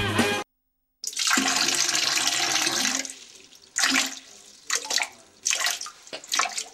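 Water splashing: one long splash, then several short splashes, as feet step through shallow water at the edge of a rocky pond.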